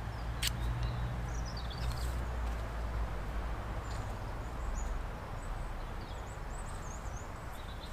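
Small birds chirping in short twittering phrases now and then over a steady low rumble, with one sharp click about half a second in.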